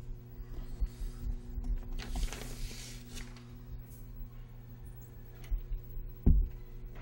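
A steady low hum throughout, with a brief hissing rustle about two seconds in and a short low thump near the end.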